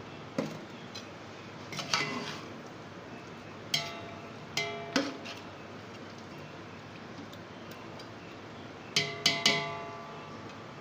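Metal spoon knocking against the side of a metal cooking pot while stirring: sharp clanks that ring briefly, in small clusters, with three quick ones near the end.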